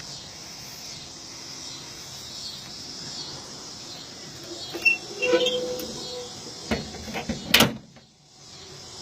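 A steady drone of insects, then about five seconds in a short squeak and a few clicks, and near the end two sharp knocks.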